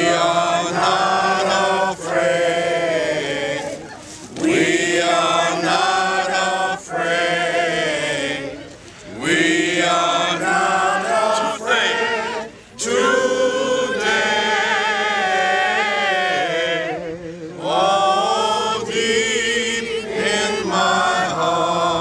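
A group of people singing together in long drawn-out lines, with short breaks every few seconds between phrases.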